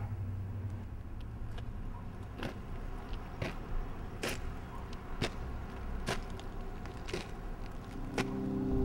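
Footsteps on a concrete walkway, a slow walk with a little under one step a second, over a steady low hum. Music comes in near the end.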